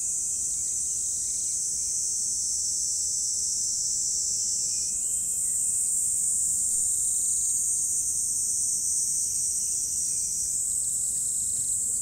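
Steady high-pitched chorus of crickets chirring at dusk. The pitch band shifts slightly higher about five seconds in.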